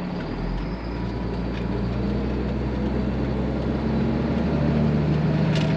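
Engine of a farm machine running steadily, growing a little louder, with its pitch shifting about four and a half seconds in.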